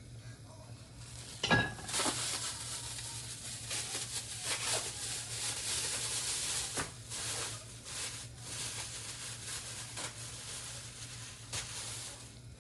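Food sizzling and frying in a hot pot while being stirred, with irregular crackles. It starts just after a single sharp knock about a second and a half in, and dies down near the end.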